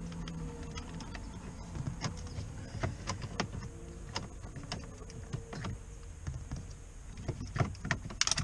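Irregular light clicks and small metal rattles of an Allen key and screws being worked on a steel switch plate at a car's lower dash, with a denser run of sharper clicks near the end.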